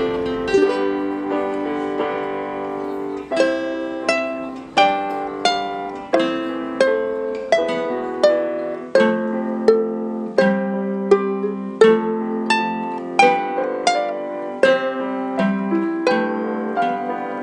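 Instrumental background music: a gentle plucked-string melody, harp-like notes struck about once or twice a second, each ringing and fading away.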